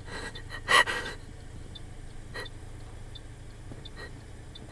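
A person's short, sharp breath or gasp about a second in, over a low steady hum.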